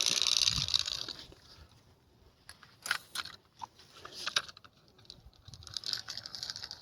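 Fishing reel being cranked, a fast fine ticking. It stops after about a second, a few sharp clicks of handling follow, and the cranking starts again near the end.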